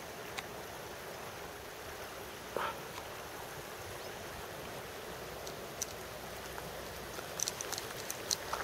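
River water rushing steadily, an even hiss of flowing water. A short knock comes about two and a half seconds in, and a cluster of small sharp clicks near the end.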